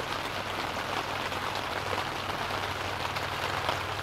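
Heavy rain falling steadily on the tent, heard from inside as an even patter on the fabric.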